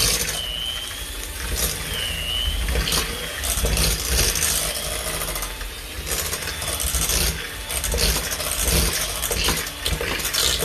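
Handheld electric mixer running in a pot of mashed potatoes, its motor going steadily as the beaters whip them, with intermittent sharper scraping noises.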